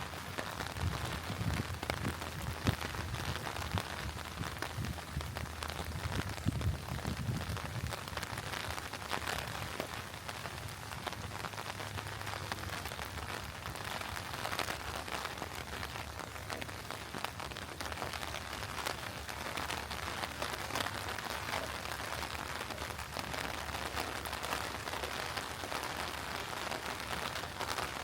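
Steady rain falling and pattering on surfaces, a dense even hiss of many small drop ticks, with a low rumble during roughly the first eight seconds.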